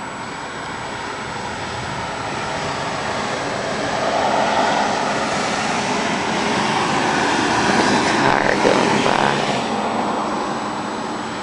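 A steady rushing, engine-like noise that swells gradually, is loudest about eight to nine seconds in, then eases a little.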